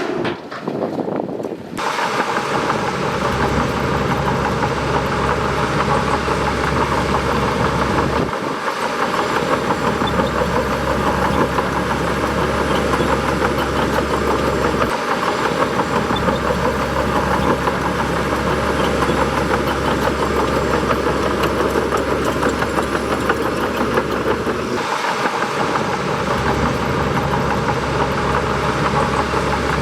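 Bulldozer's diesel engine running steadily under load, cutting in abruptly about two seconds in.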